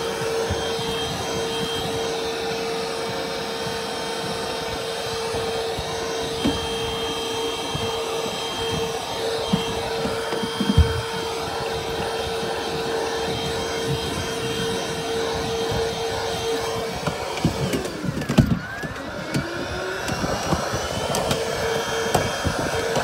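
Cordless stick vacuum cleaner running steadily with a high whine, sucking at the car's interior, with a few knocks of the nozzle against the trim. About three-quarters of the way through, its pitch dips and then climbs back.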